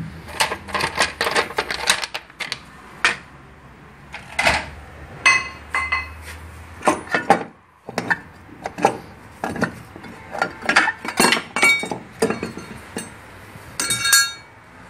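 Metal hand tools and engine parts being handled: a run of sharp clinks and clanks, some ringing briefly, with a quick burst of metallic rattling near the end.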